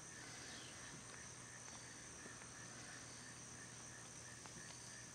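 Faint insect chorus: a steady high-pitched buzz with a soft chirp repeating a few times a second.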